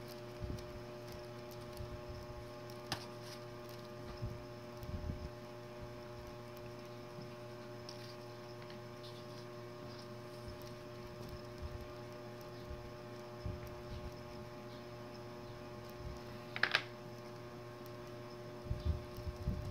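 Steady electrical hum made of several constant tones, with scattered faint low bumps and a couple of short clicks, the clearest about 17 seconds in.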